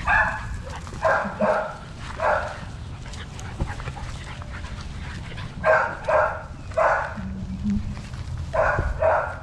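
American Bully puppy barking in short, high yips, about nine in all, singly or in quick pairs, with a pause of about three seconds in the middle.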